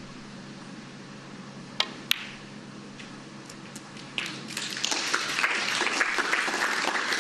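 A snooker cue strikes the cue ball with a sharp click, and a moment later the cue ball clicks against an object ball. About two seconds later the audience starts applauding the pot, and the applause swells and carries on.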